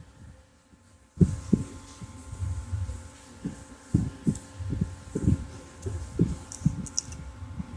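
Irregular low thumps and knocks, several a second, over a faint steady hum. They start about a second in, after a brief near-silent gap.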